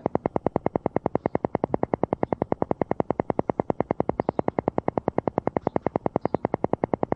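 Electronic 'alpha noise' for brainwave entrainment: a synthesized sound beating very evenly at about ten pulses a second, the alpha-wave rate.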